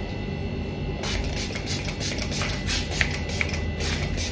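Hand-pump spray bottle of heat protectant misting onto hair: a quick series of short hissing sprays, starting about a second in, over a low steady hum.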